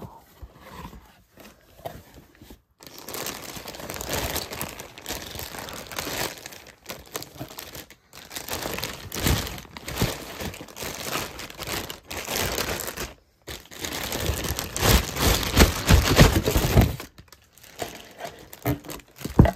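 Clear plastic wrapping crinkling and rustling as a doll is pulled out of it and handled in its cardboard box, in several stretches with brief breaks, loudest near the end.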